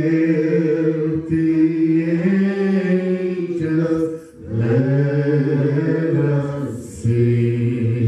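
Worship singers, a few voices into microphones, singing slow, long-held notes, with a short break about four seconds in.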